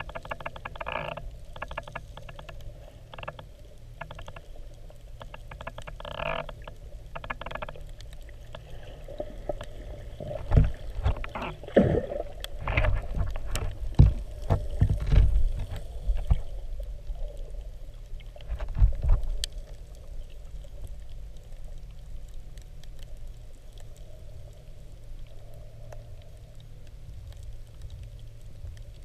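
Underwater sound as picked up by a camera in shallow water: a steady low rumble of moving water, with runs of quick clicks in the first several seconds and louder low thumps and knocks from about ten to twenty seconds in.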